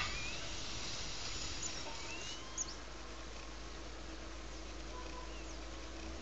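Outdoor ambience: a steady hiss over a low hum, with a few short rising chirps, the clearest about two seconds in.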